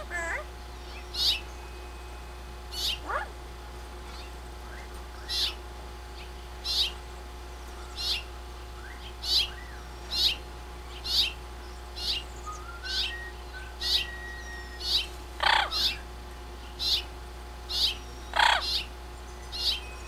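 Bird calling: a short, high-pitched chirp repeated about once a second, with a brief run of faint rising whistled notes in the middle and two lower, longer calls near the end.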